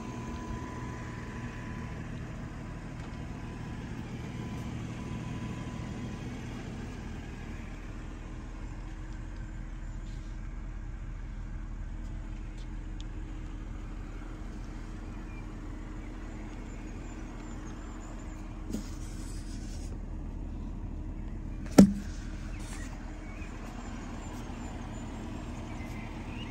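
BMW 440i's turbocharged straight-six idling with a steady low hum. Near the end comes a single sharp knock.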